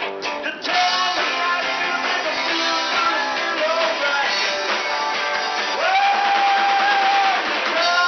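Live rock-and-roll band playing: electric guitars and drum kit. The sound briefly drops out just under a second in, and a long steady note is held for about a second and a half near the end.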